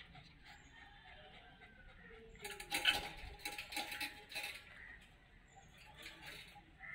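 Wire cage rattling and clinking for about two seconds, starting a couple of seconds in, as it is jostled; low background otherwise.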